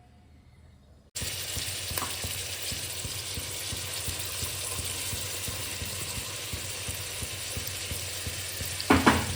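Food sizzling in hot oil in a cooking pan, a steady frying hiss that cuts in abruptly about a second in.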